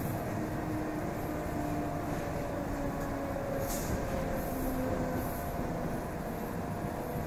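EP2D electric train heard on board: steady running noise with whining electrical tones that shift in pitch, and a short hiss about three and a half seconds in.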